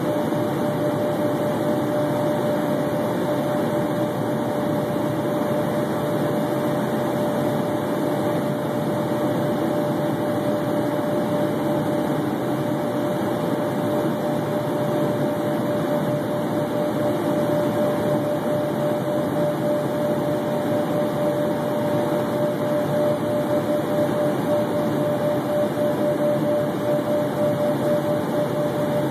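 Steady in-flight cabin noise of an Embraer Phenom 100 light jet: its rear-mounted turbofan engines and the rush of air over the fuselage, with a steady whine running through it.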